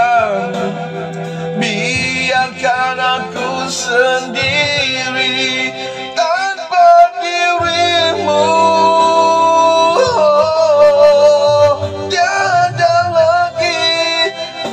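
Malay pop ballad music: a melodic lead line with vibrato over a steady accompaniment, with one long held note around the middle.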